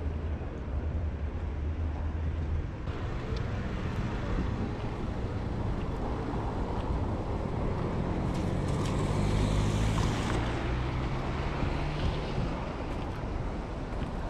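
Street traffic noise on a rain-wet night under a steady low rumble. About eight seconds in, a car passes on the wet road, its tyres hissing for two or three seconds.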